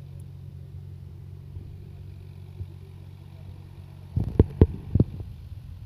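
Tractor diesel engine running steadily as it drives through a tilled field. About four seconds in, four loud thumps come in quick succession.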